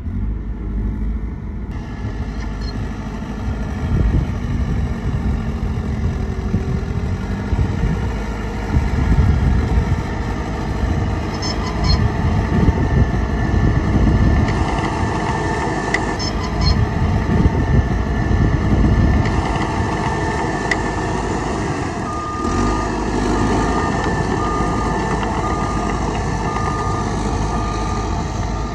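Heavy diesel engines of a dump truck and bulldozer running and revving at work. In the last several seconds a reversing alarm beeps steadily, about once a second.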